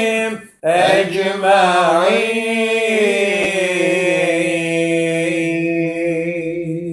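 A man's voice chanting the closing phrase of an Islamic prayer (dua) in a long, ornamented melody. After a brief breath about half a second in, it settles into a held note that tapers off near the end.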